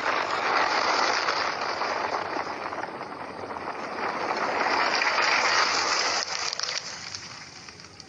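Whoosh sound effect for an animated logo intro: a rushing noise that swells, dips, swells again and then fades away, with a few crackles shortly before it fades.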